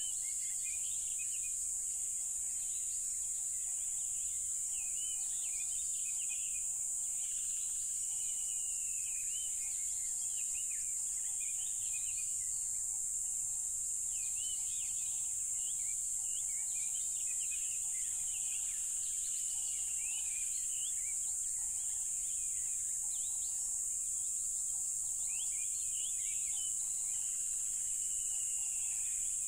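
Steady, high-pitched chorus of crickets, with birds chirping and calling over it.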